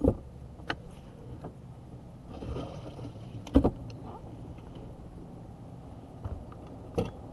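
A few sharp knocks and thumps on a bass boat while an angler fights a hooked bass, the loudest about three and a half seconds in and another near the end, over a low steady hum.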